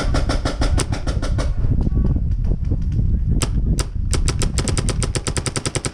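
Planet Eclipse Etha paintball marker firing fast strings of shots, about ten a second, broken in the middle by a pause and two single shots. Wind buffets the microphone throughout.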